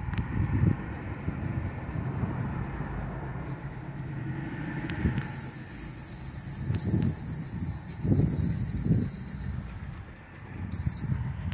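Car rolling slowly with a low engine and road rumble. About five seconds in, a high-pitched pulsing tone starts and runs for about four seconds, then sounds again briefly near the end.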